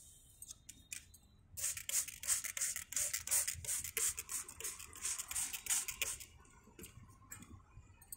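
Hand spray bottle squeezed over and over, a quick run of short sprays, several a second, starting about a second and a half in and stopping about six seconds in, as pesticide is misted onto a plant's leaves.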